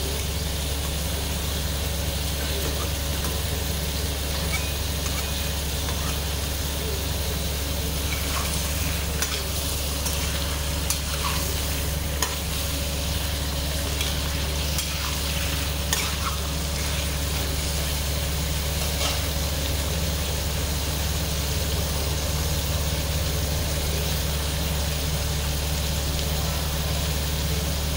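Chicken pieces sizzling in oil in a metal wok, with a metal spatula scraping and clicking against the pan as they are stirred, the clicks mostly in the middle stretch. A steady low hum runs underneath.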